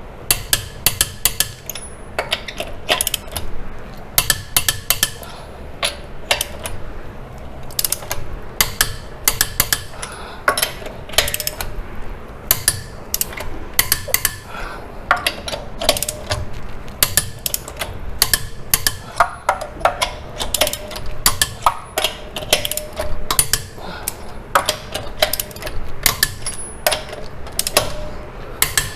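A torque wrench ratcheting as it tightens a truck wheel's lug nuts, with runs of quick sharp clicks and short pauses in between.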